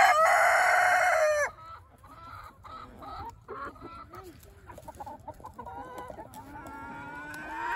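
A rooster crowing: the end of a long held note that drops off about a second and a half in. After it, quieter clucking and calls from a flock of chickens.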